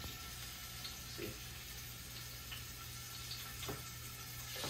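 Marinated oxtail pieces frying in hot oil in a stainless steel pot, a faint steady sizzle with a couple of soft knocks as pieces go in, over a low steady hum.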